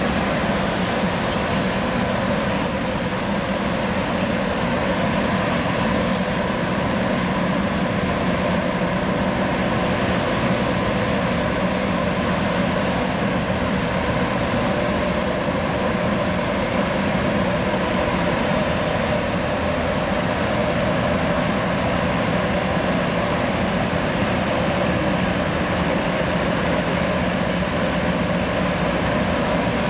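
Gas turbines of a Boeing 929 jetfoil running steadily: an even rush of noise with a high, steady whine.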